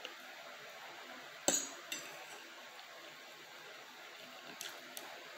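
Fork and knife clinking against an amber glass plate: one sharp clink about a second and a half in, a lighter one just after, and two faint taps near the end.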